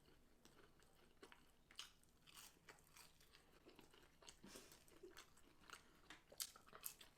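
Faint, close-up chewing and crunching of fried chicken tenders and fries, with scattered crisp crunchy clicks that come a little thicker near the end.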